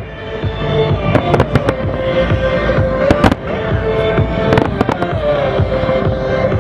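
Aerial fireworks exploding in clusters of sharp bangs every second or two, over music playing throughout.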